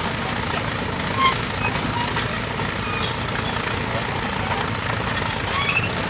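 County crawler tractor, a tracked Fordson Major, running steadily under load as it pulls a plough, with a few short high chirps about a second in and near the end.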